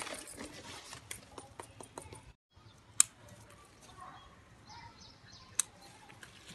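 Leaves and stems rustling as a harvested radish is handled, then, after a brief dropout, scissors snipping leafy greens: two sharp snips, one about three seconds in and another near the end.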